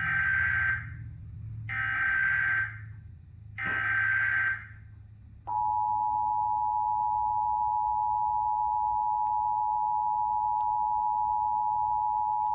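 Emergency Alert System tones on a cable TV channel: three one-second bursts of digital SAME header data, then, from about five and a half seconds in, the steady two-tone EAS attention signal sounding without a break.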